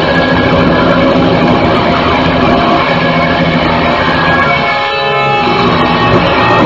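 Raw black metal demo recording: loud, dense distorted electric guitar in a wall of noise, thinning briefly about five seconds in.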